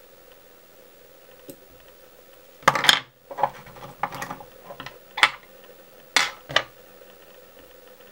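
Fly-tying tools being handled and put down on the bench: a handful of sharp clicks and clacks, the loudest about three seconds in, with a few more over the next few seconds.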